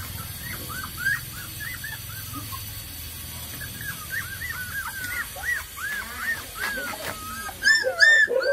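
Hungry puppies whining: a quick run of short, high cries, several a second, rising into louder yelps near the end.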